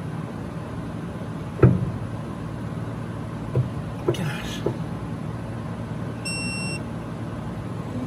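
A digital torque wrench gives one steady high-pitched beep of about half a second near the end: its warning that the applied torque has passed the set limit. Before it come a sharp knock about one and a half seconds in and a few lighter clicks, over a steady low hum.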